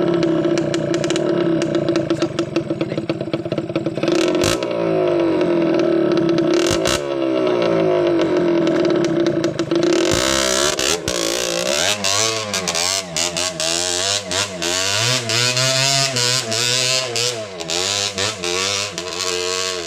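Dirt bike engines: one idles steadily at first. From about halfway, a trail bike revs up and down again and again as it churns its rear wheel through deep mud.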